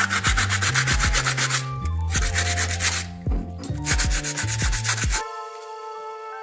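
Metal part of a hydraulic jack being hand-sanded with a folded strip of sandpaper: quick back-and-forth scratching strokes in three bursts, stopping about five seconds in. Background music plays throughout.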